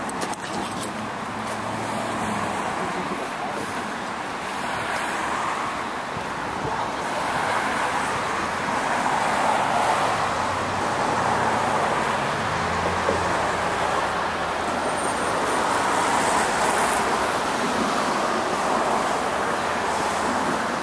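Road traffic crossing a highway bridge: a steady rush of tyre noise that swells and eases as vehicles pass.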